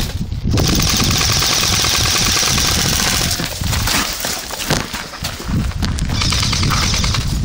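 Airsoft electric guns firing full-auto: a long burst of rapid, even rattling lasting a few seconds, then a shorter burst near the end, over low rumble from wind and movement on the microphone.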